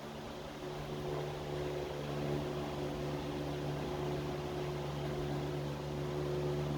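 Steady hum of an electric motor running at constant speed, a low drone with several overtones over a light noise.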